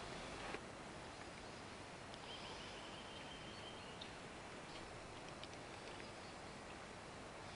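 Faint, quiet outdoor ambience: a steady hiss, with a thin, high, steady tone lasting about a second and a half starting about two seconds in, and a few faint ticks.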